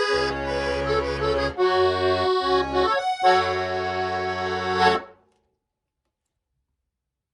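Chaika M 313 accordion playing chords over bass notes, ending on a held final chord that cuts off about five seconds in, followed by silence.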